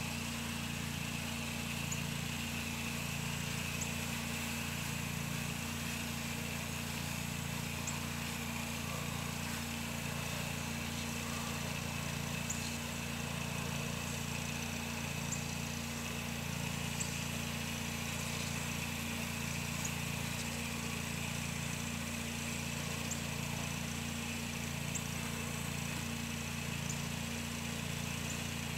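Pressure washer's engine running at a steady speed, with a steady hiss as the wand sprays the house siding.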